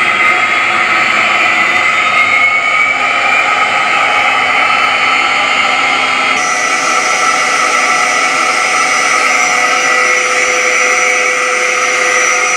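Simulated jet engine sound from a Mr. RC Sound electronic sound module, played through two speakers (the stock speaker and one add-on transducer) in a foam model airplane. A steady turbine whine and rush, with a tone rising about two seconds in and the sound turning brighter about six seconds in.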